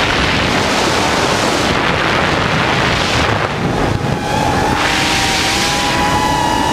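Loud wind rush on an FPV drone's onboard camera microphone. About four seconds in, a motor whine comes in, slowly rising in pitch.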